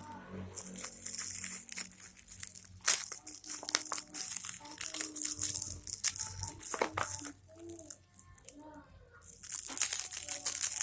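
Plastic packaging crinkling and rustling as it is handled and pulled open, with many small crackles. It goes quiet for a couple of seconds near the end, then starts again.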